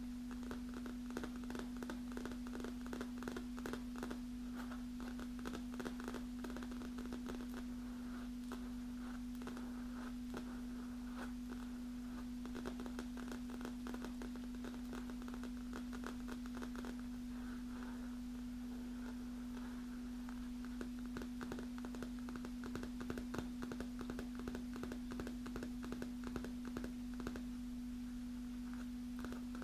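Long natural fingernails tapping on a black leather armrest cushion: many quick, light clicks in irregular runs, over a steady low hum.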